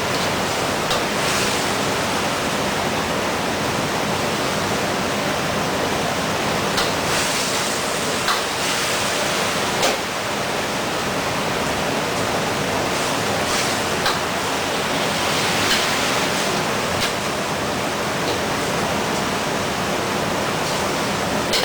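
Food sizzling steadily in hot oil in a pan, with a few sharp clicks of a utensil against the pan.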